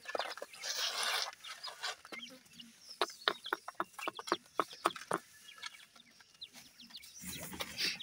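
Young grey francolin chicks peeping: many short, high calls that fall quickly in pitch, packed closest together in the middle. A rustle in the first second and a broader rustling noise near the end.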